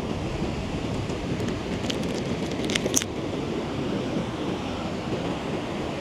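Wind buffeting the microphone over the wash of sea waves on the shore, a steady rushing noise. A few faint sharp clicks come about two to three seconds in.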